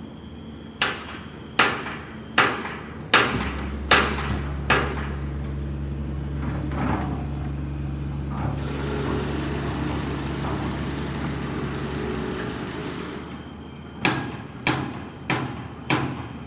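Building-site noise: hammer blows at a steady pace, about one every 0.8 seconds. A machine's motor then runs with a steady low hum, and a loud harsh hiss rises over it for several seconds before stopping. Faster hammer blows start again near the end.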